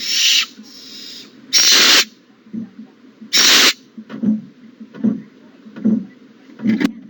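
Owlets in a nest box giving long hissing begging calls, three rasping hisses about half a second each in the first four seconds. Soft low thumps follow about once every second, with a couple of sharp clicks near the end.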